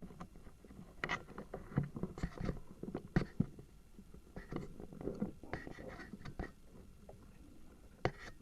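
Irregular close rustling and scraping with a few sharp knocks, about a second in, three seconds in and near the end: handling and movement noise right at the microphone.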